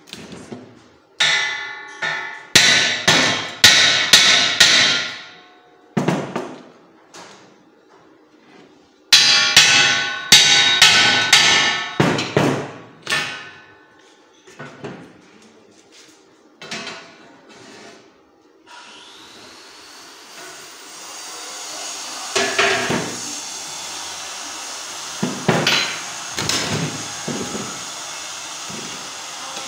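Rapid hammer blows on steel square tubing, each strike ringing, in two quick runs with scattered knocks between. About two-thirds of the way in, a steady machine hiss starts up with a brief rising whine, and a few more metal knocks land over it.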